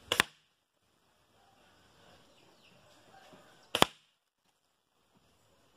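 Two air-rifle shots from a CBC Jade Pro spring-piston rifle firing 5.5 mm Sonic Gold pellets, heard from the target end: each is a quick double crack as the shot arrives and the pellet smacks into the wooden board behind the paper target. The second comes about three and a half seconds after the first.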